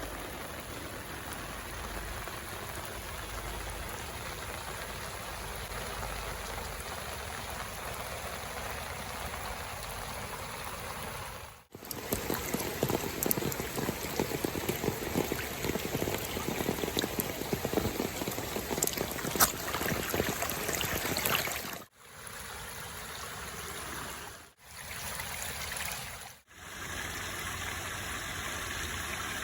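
Rain falling steadily, with a louder stretch in the middle where dense drops crackle against a surface. The sound is broken by several abrupt cuts.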